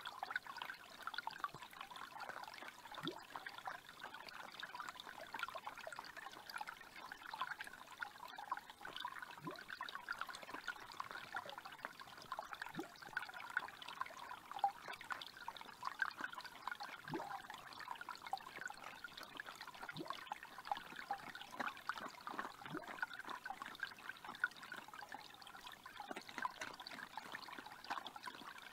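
Small forest creek trickling steadily over stones, with a few faint low taps now and then.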